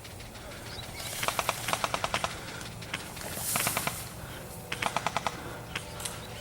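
Airsoft guns firing on full auto: three short strings of rapid pops, about ten a second, then a few single shots near the end.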